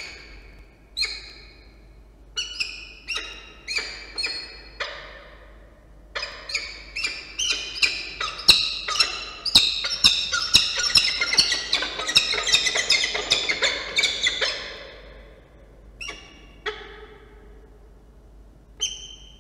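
Peregrine falcon calling loudly during a prey handover of a starling in the nest box. Separate harsh calls come faster and faster and run together into a dense chatter for about eight seconds, then break off, and a few single calls follow near the end.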